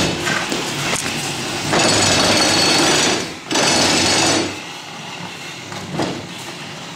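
Wooden lathe stand, loaded with a small lathe, dragged across a concrete floor, its legs scraping and grinding. The scraping is loudest in a long pull from about two seconds in, with a brief break partway through, then goes on more quietly.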